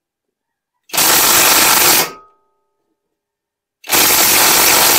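Hercules 3/8-inch brushless 20V cordless impact wrench hammering on a seized control-arm bolt in two bursts of about a second each. The bolt does not break loose.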